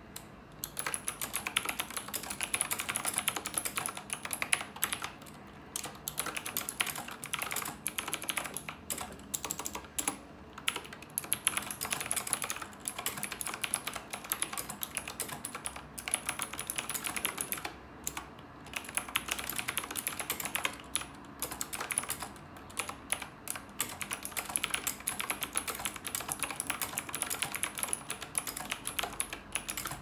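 Fast, steady typing on a Knewkey Rymek typewriter-style mechanical keyboard: a dense stream of key clicks and clacks, broken by a few short pauses.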